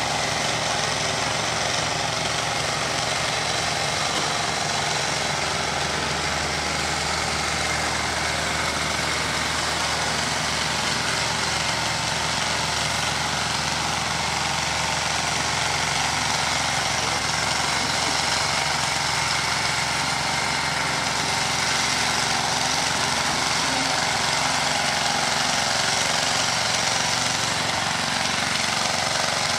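Small stationary engine on a train-washing cart running steadily to drive a pressure washer, with the steady hiss of its water jet spraying the carriage side.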